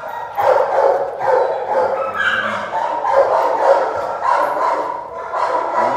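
A puppy barking and yipping over and over while playing tug with a rope toy, in short calls that follow one another every fraction of a second.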